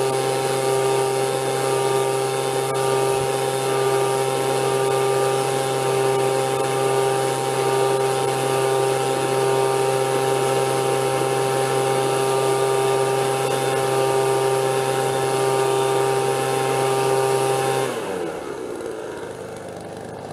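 Leaf blower running steadily with a high whine, blowing into a home-made drum tumbler to clean alpaca fleece. About 18 seconds in it drops off and winds down to a quieter running sound.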